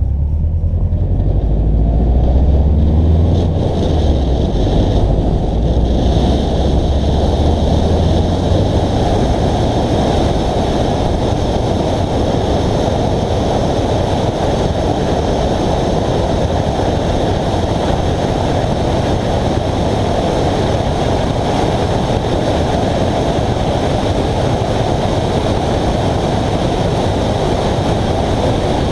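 Heavy wind buffeting on a GoPro's microphone mounted on a moving Subaru, a loud steady rush. For the first eight seconds or so a deep engine rumble sits under it, then fades into the wind.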